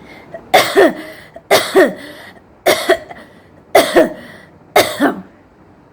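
A woman coughing on purpose: five loud, separate double coughs about a second apart, each with a falling pitch.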